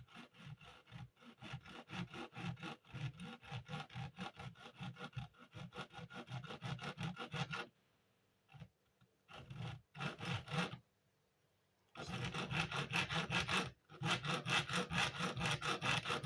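Junior hacksaw cutting through a crossbow bolt shaft in quick back-and-forth strokes. The sawing stops about eight seconds in, gives a few short strokes, then runs steadily again from about twelve seconds.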